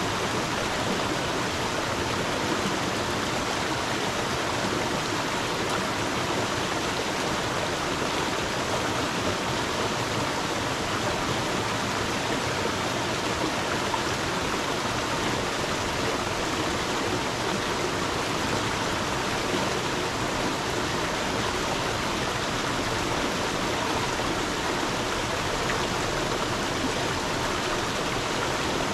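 A stream of water running and splashing, a steady even rush with no change in level.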